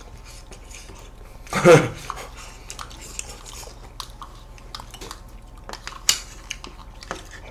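Plastic spoons scraping and clicking against small plastic ice cream cups, a string of short sharp clicks with one louder click about six seconds in. A short vocal sound about two seconds in is the loudest thing.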